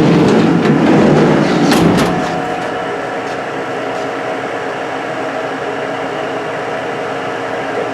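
Spindle of a Haas VF1 CNC vertical machining center running, turning at about 2,500 RPM, giving a steady whine of several even tones. For the first two seconds a louder rushing noise lies over it, with a couple of sharp clicks just before it eases.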